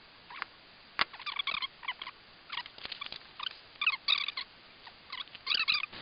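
Snips cutting a thin piece of brass sheet: a series of short, squeaky metallic crunches in quick groups of two or three.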